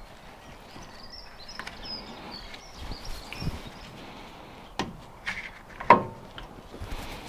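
Tools and brake parts clinking and knocking as an MX-5's rear brakes are reassembled: a few sharp knocks, the loudest about six seconds in.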